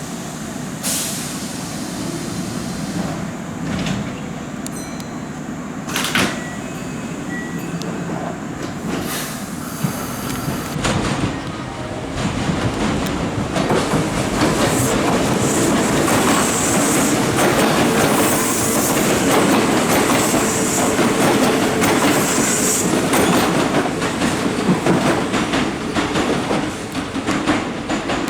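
Kintetsu electric train leaving the platform after its sliding doors close: a few sharp knocks in the first ten seconds, then the running noise builds and stays loud, with wheels clacking over rail joints.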